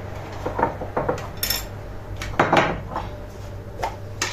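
Kitchen utensils clinking and knocking against a cezve and dishes: a handful of short knocks and clinks, the loudest about two and a half seconds in.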